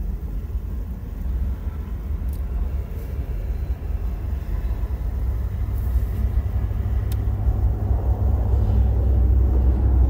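Steady low rumble of an idling vehicle heard from inside its cabin, growing louder near the end.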